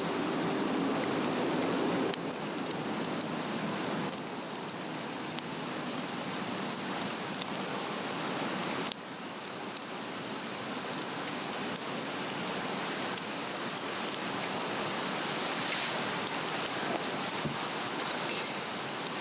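A Swedish torch of split cedar burning: a steady rushing hiss of flame with many small sharp crackles and pops scattered through it.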